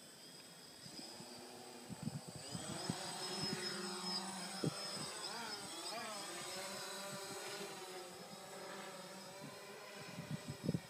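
Small quadcopter drone's propellers spinning up about two seconds in, then a steady buzz of several whining tones that waver in pitch as the drone lifts off and flies, growing gradually quieter later on. A few short knocks near the end.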